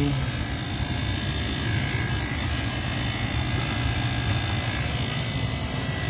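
Goodman gas furnace running with a steady mechanical hum. Its inducer motor is worn and noisy and due for replacement.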